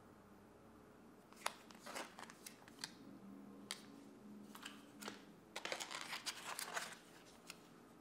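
Plastic food packets handled by hand: scattered crinkles and light taps, with a denser run of crinkling a little past the middle.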